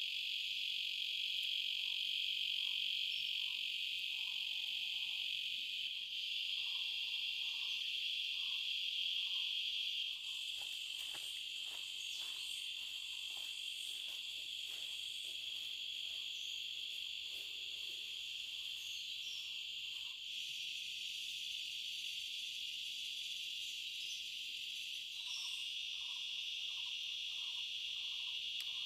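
Steady, high-pitched chorus of night insects such as crickets, trilling without a break. A faint, short call repeats about twice a second in the first third and again near the end, and a few faint soft knocks fall in the middle.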